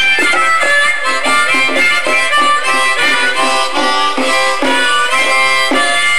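Blues harmonica playing short, repeated chords in a steady rhythm during a live rock performance.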